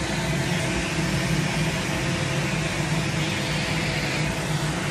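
Steady machine hum with an even rush of air, as from a fan-driven unit running continuously.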